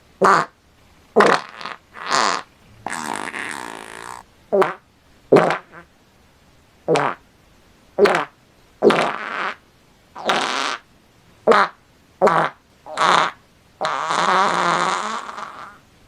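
A series of fart sound effects, about seventeen in all: mostly short blasts under half a second long, spaced irregularly, with two longer drawn-out ones, one a few seconds in and one of about two seconds near the end.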